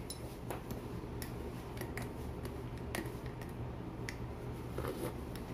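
A small metal spoon stirring in a glass coffee mug, clinking lightly against the glass in a few faint, irregular ticks over a low steady hum.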